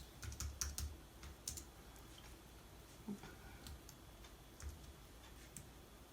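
Faint computer keyboard typing: irregular keystrokes as a line of title text is typed, busiest in the first second.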